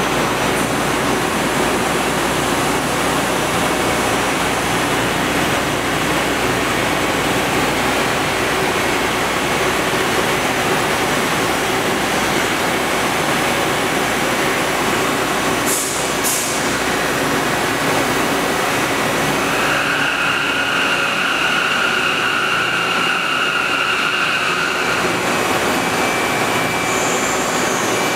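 Steady machine-shop noise: an even hiss and rumble of running machinery. A high whine joins in for about five seconds past the middle, and there are a couple of faint high clicks shortly before it.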